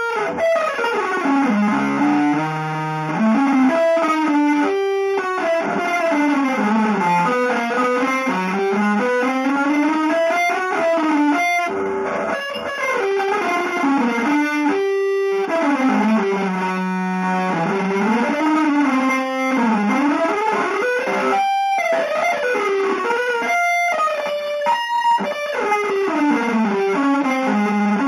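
Electric guitar with effects and some distortion, playing fast single-note runs that wind up and down in pitch, broken by a few short gaps.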